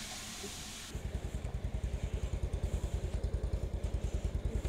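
A motorcycle engine comes in about a second in and idles with a steady, rapid low thumping, about eight to ten beats a second.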